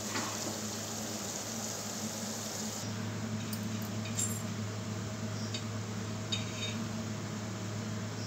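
Oil sizzling softly under frying atta biscuits, then a steady low hum with a few light clinks of a steel plate.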